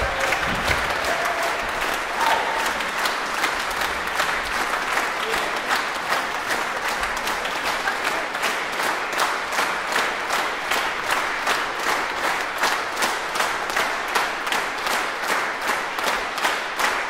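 Concert audience applauding. About halfway through, the clapping falls together into a steady rhythmic beat in unison.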